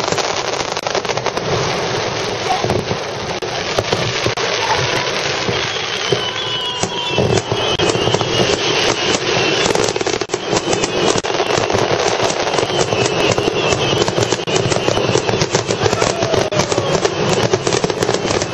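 Fireworks display with aerial shells bursting in a dense, unbroken barrage. Many rapid pops and bangs overlap without a pause.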